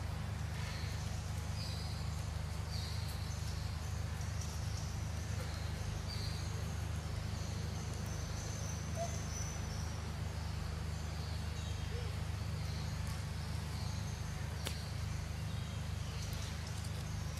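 Outdoor ambience: a steady low hum with scattered short, high-pitched chirps, and a single sharp click near the end.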